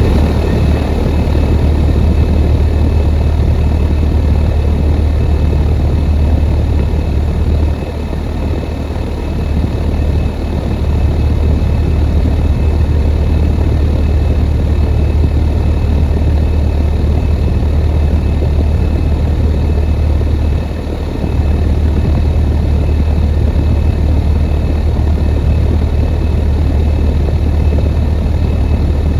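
2015 Rheem central air conditioner's outdoor unit running steadily: a deep hum under the even rush of its condenser fan.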